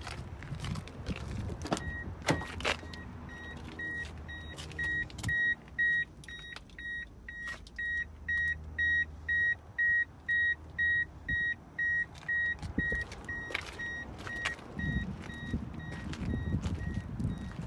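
A 1998 Mazda MX-5's electronic warning chime beeps about twice a second at a single pitch. It is loudest in the middle and fades toward the end, with a few knocks and handling noises around it.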